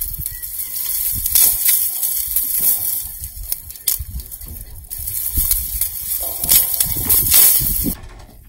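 Dry grass and brittle stalks rustling and crackling close to the microphone as hands push through them among loose rocks. The sound stops suddenly near the end.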